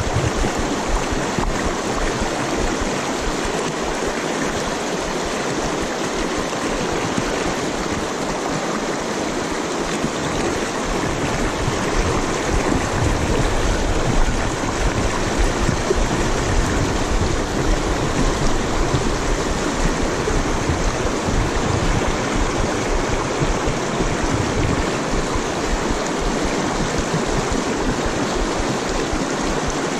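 Shallow, rocky river riffle: fast water rushing and splashing over stones in a steady wash.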